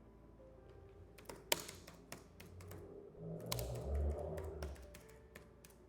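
Computer keyboard keys clicking in sparse, irregular strokes as someone types, with a brief low rumble near the middle.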